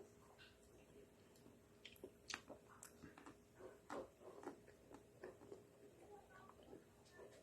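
Faint chewing and soft wet mouth sounds with scattered small clicks from eating a Magnum chocolate-coated ice cream bar.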